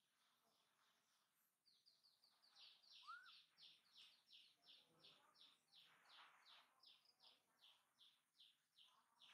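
Faint bird song: a fast, even run of short, high, falling notes, about three or four a second, starting near two seconds in, with one short rising call about three seconds in.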